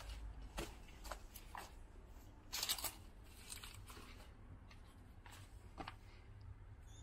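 Footsteps crunching and scraping on gritty debris underfoot, irregular steps about half a second to a second apart, with one louder scrape near the middle, over a low rumble.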